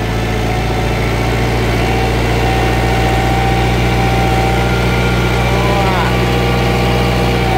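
Kubota tractor's diesel engine running steadily at a constant speed.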